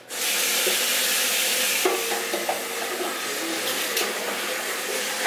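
Water running from a bathroom sink faucet into an electric kettle as it is filled. The faucet comes on abruptly at the start, then runs with a steady rush.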